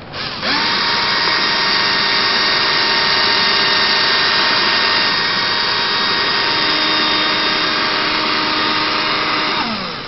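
Cordless drill spinning a Kub Kar axle nail while a file is held against the nail's head flange: a steady motor whine under a pretty noisy, rasping scrape as the file cuts away the burrs left from manufacturing. The drill spins up about half a second in and winds down near the end.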